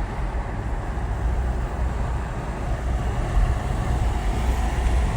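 Steady low rumble of a moving vehicle, with an even hiss above it.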